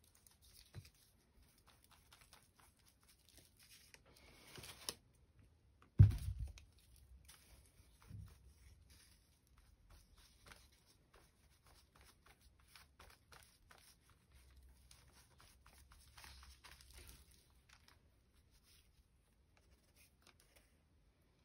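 Paper collage being worked by hand: collage paper rustling and tearing, with small taps and scrapes of a glue brush pressing it down, and one loud thump about six seconds in.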